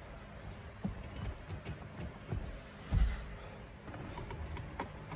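Scattered light clicks and knocks, with one louder dull thump about three seconds in.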